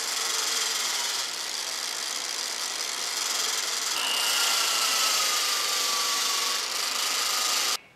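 Angle grinder running steadily while a small metal part is held against its spinning wheel to clean it, a dense grinding hiss with a faint whine that slides slowly lower in the second half. The sound cuts off suddenly near the end.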